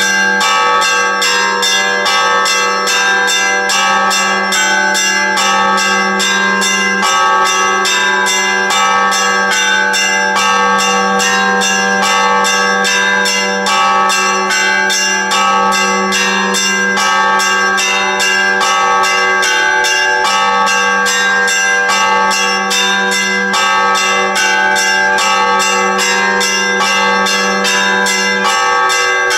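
Church bells pealing without pause: several bells of different pitches struck in a fast, even rhythm of about three strokes a second, their tones ringing on over one another.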